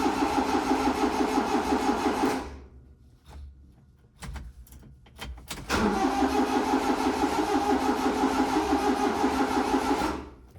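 Honda Acty engine cranking on its starter without catching, in two long attempts of about four seconds each with a pause between, a fast even churning beat throughout each: the no-start the owner puts down to the aftermarket AutoZone ignition control module.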